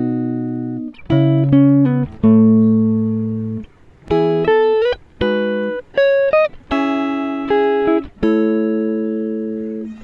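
Background instrumental music: a slow run of chords and single notes, each starting sharply and fading as it rings.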